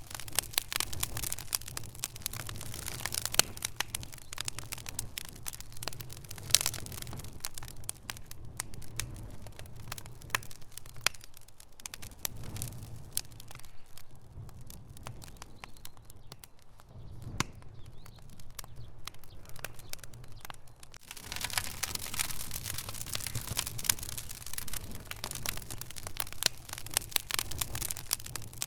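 Wood fire crackling, with frequent sharp pops and snaps over a low steady rumble. The pops thin out and soften through the middle, then grow dense again about two-thirds of the way through.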